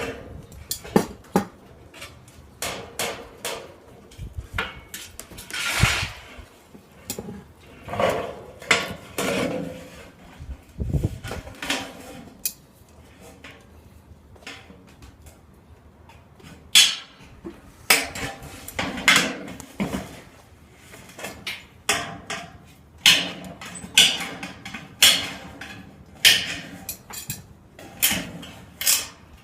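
Sheet metal being worked by hand in a roofing-metal shop: irregular metallic knocks and clanks from tools striking and handling the sheet, with short scraping noises between them.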